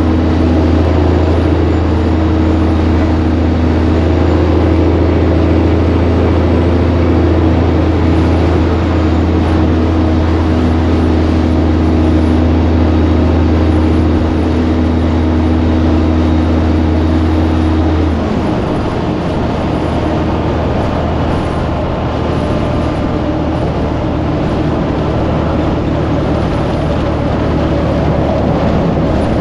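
Semi truck's diesel engine pulling on the road with a steady low drone; about eighteen seconds in the steady note drops away, leaving a rougher, more even running noise.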